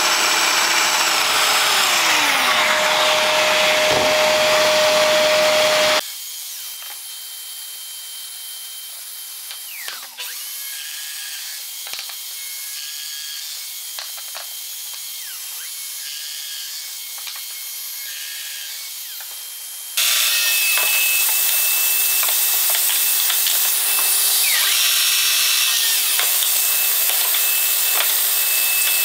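Festool Domino joiner running and plunging its cutter into oak to cut loose-tenon mortises, a steady whine with cutting noise. It drops to a quieter stretch in the middle, and the motor's pitch falls as it winds down a few seconds in and again near the end.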